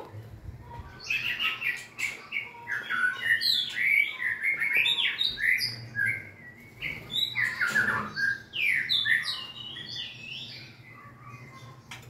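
White-rumped shama singing: a rapid run of varied whistled phrases, many sliding up or down in pitch, that fades about ten seconds in.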